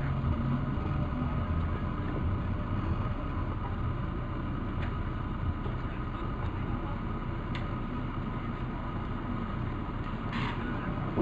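Steady low rumble of a car's engine and road noise, heard from inside the moving car, with a faint steady high hum over it.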